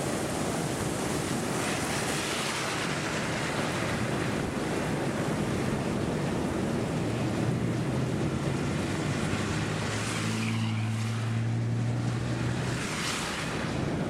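Strong wind blowing across the microphone: a steady rushing noise. A low steady hum joins it about halfway through and fades out near the end.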